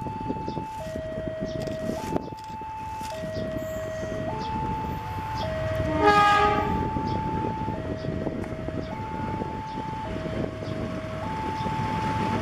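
A GE diesel locomotive's horn sounds once, briefly, about six seconds in, over the steady rumble of the approaching train. Throughout, an electronic two-tone warning alarm alternates between a higher and a lower note, about a second each.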